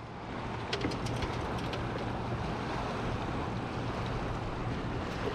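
Steady wind and water noise on open water, with a few light ticks about a second in.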